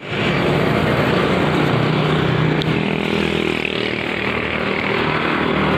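Honda CB motorcycle engine running steadily on the road, with a steady engine note over a haze of wind and road noise that eases slightly around the middle.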